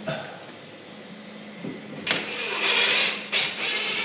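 Cordless driver running under load, driving a full-length structural screw up through the steel stringer toward the white oak platform. It starts about halfway in with a high motor whine, stops briefly, then runs again.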